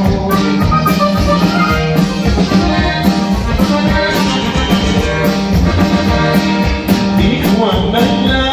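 Live norteño band playing an instrumental passage: button accordion and guitar over a steady drum kit beat.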